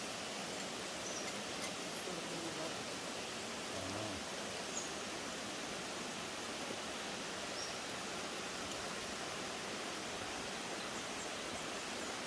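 Small forest creek running: a steady, even rush of water, with a few faint high chirps.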